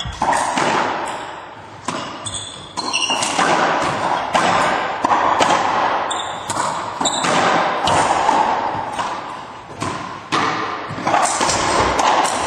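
Racquetball rally: the hollow rubber ball cracks off racquets, the front wall and the floor in a quick irregular series of sharp hits, each ringing in the echo of the enclosed court, with a few short high squeaks in between.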